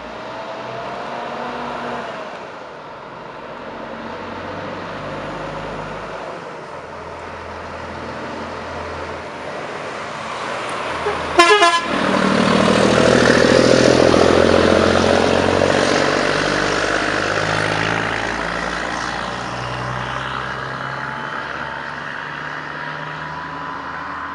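Volvo FH12 500 truck's straight-six diesel pulling away and driving close past. A short horn blast comes about halfway through, and the engine is loudest just after it as the truck goes by, then fades.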